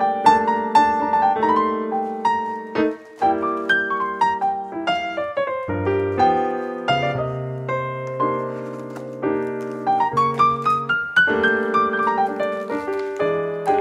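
Background piano music: a melody of struck notes over held chords, with a brief pause about three seconds in.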